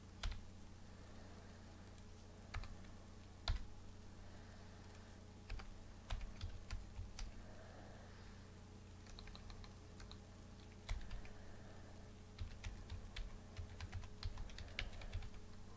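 Faint typing on a computer keyboard. Single key clicks come first, then runs of quick keystrokes about six seconds in and again near the end, over a steady low hum.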